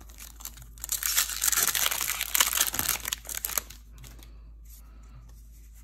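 Plastic Magic: The Gathering booster-pack wrapper crinkling loudly as it is torn open, starting about a second in and dying down a little past halfway, followed by a few faint rustles.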